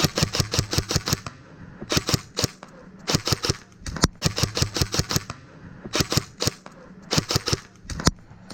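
Airsoft guns firing in rapid bursts of sharp shots, about seven bursts of half a second to a second each, with a lone shot in between.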